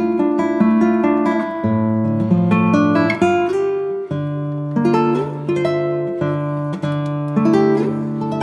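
Background music on acoustic guitar: a quick, unbroken run of plucked notes.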